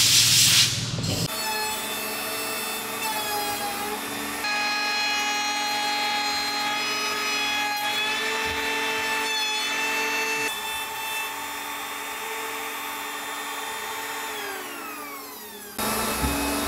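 Power drill driving a hole saw through the boat's wooden deck planking: a steady motor whine with the saw grinding through wood, the pitch shifting a couple of times as it bites, then winding down and stopping near the end.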